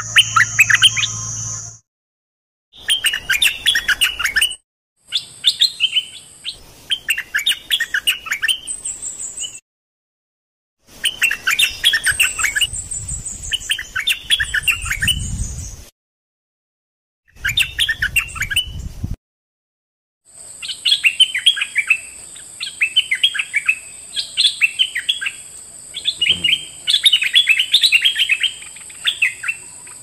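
Stripe-throated bulbul singing: quick, bubbly chattering phrases repeated over and over, in several short recordings joined by abrupt silent gaps. A steady high whine runs underneath the song in the second half.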